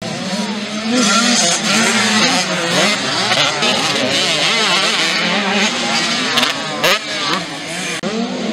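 Several small motocross bikes racing, their engines revving up and falling back again and again as the riders accelerate, shift and ease off.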